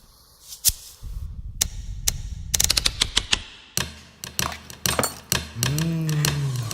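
Music built from sampled everyday sounds: sharp clicks and knocks over a low hum, with a quick rattle of clicks partway through. Near the end a low tone bends up and back down.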